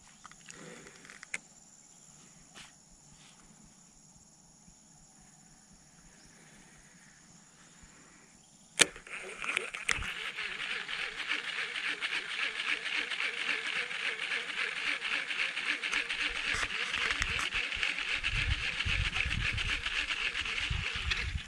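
Baitcasting reel engaging with one sharp click about nine seconds in, then cranked steadily: a fast, even gear whir with fine ticking as the spoon lure is retrieved. Low handling thumps come near the end.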